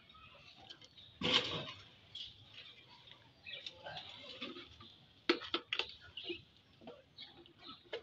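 Wooden budgie breeding box knocking and rattling against a metal window grille as it is worked loose and lifted down. The loudest knock comes about a second in, and a quick run of sharp knocks follows past the middle. Budgies chatter steadily in the background.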